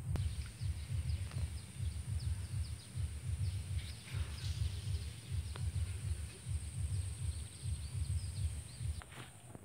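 Outdoor rural ambience: faint chirping birds over a low, uneven rumble, with a steady high whine and a few light clicks.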